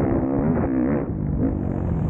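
Motocross bike engine running hard, its pitch dipping and climbing again as the throttle is rolled off and back on, with a short drop in level about halfway through.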